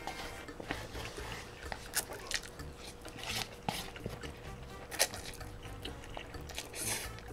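A person slurping and chewing instant cup noodles, with short wet slurps about three and a half, five and seven seconds in and small clicks between them.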